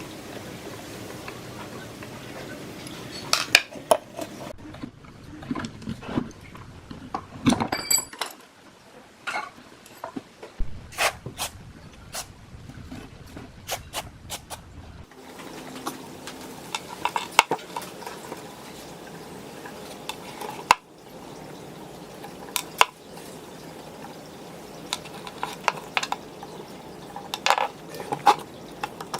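Irregular metallic clinks and knocks of small metal parts and tools being handled and set down, over a steady background hiss.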